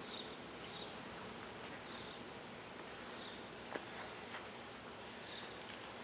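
Quiet rural outdoor ambience: a steady hiss with scattered short high chirps, and two faint clicks a little under four seconds in. No siren is sounding.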